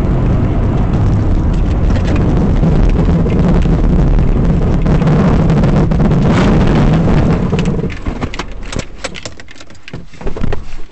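Steady engine and road noise inside a moving car, picked up by a dashcam. About eight seconds in it drops sharply, and a few scattered clicks and knocks follow.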